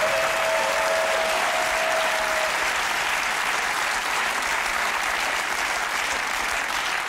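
Studio audience applauding steadily, with a single thin held note over the clapping in the first two seconds or so.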